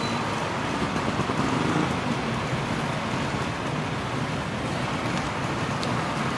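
Engine of a vintage open car running as it pulls away slowly from the start line, with other old cars and motorcycles idling behind; a steady rumble with hiss over it.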